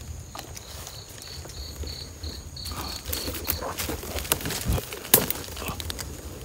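Insects chirping outdoors. One gives a pulsed high chirp about three times a second for about three seconds, over a steady higher-pitched insect drone. Rustling and scattered clicks fill the second half, with one sharp snap about five seconds in.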